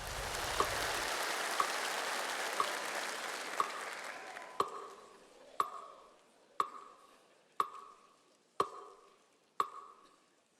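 Metronome-style ticking, steady at one tick a second, each tick with a short ringing tone. A rushing noise is loud at first and fades away over the first four or five seconds.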